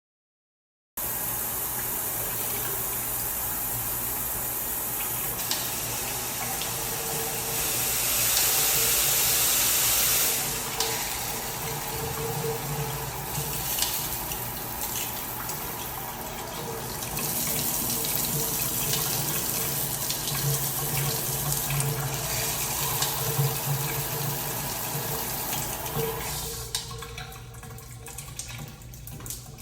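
Water spraying from a multifunction shower head, starting about a second in. The rush changes every few seconds as the spray pattern is switched; it is loudest for a few seconds about a third of the way in and quieter near the end.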